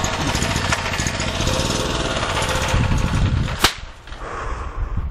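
Small portable generator's gasoline engine, fed on HHO gas, pull-started and firing in a fast, rough rattle. A single sharp crack, a backfire, comes about three and a half seconds in, after which the running quietens.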